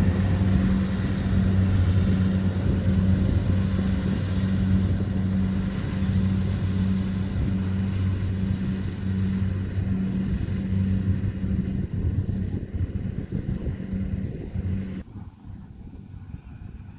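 Kubota DC70 combine harvester's diesel engine running steadily under load, a constant deep hum with mechanical rattle. The hum fades after about twelve seconds and falls away sharply near the end.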